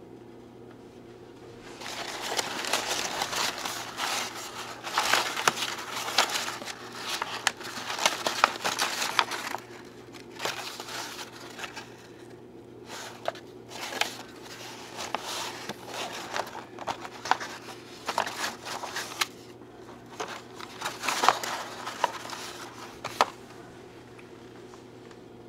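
Crumpled brown kraft packing paper crinkling and rustling as hands dig through it in a shipping box, in irregular bursts with short pauses, over a faint steady hum.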